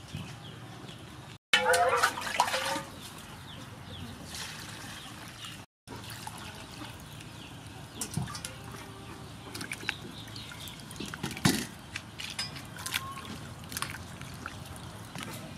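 Water sloshing and trickling in a steel bowl as hands rub and scrub gourds and leafy greens under the water, with small splashes and knocks. A short, loud animal call sounds about a second and a half in.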